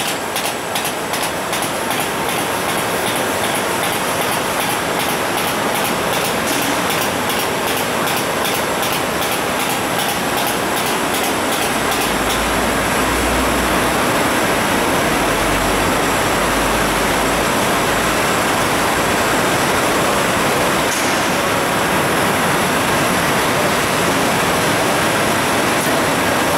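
Canning line machinery running: a loud, steady mechanical clatter, with a regular ticking through the first half and a low rumble for several seconds near the middle.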